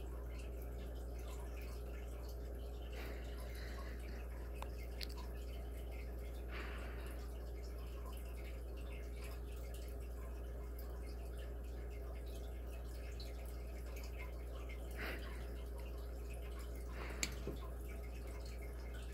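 Quiet room tone: a steady low hum, with a few faint brief rustles and one sharp tick about 17 seconds in.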